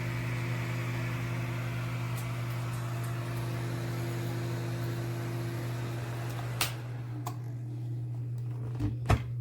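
GiveBest ceramic space heater's fan running with a steady hum and a hiss of airflow. About six and a half seconds in a click comes and the airflow noise drops away, followed by a few more clicks and knocks near the end.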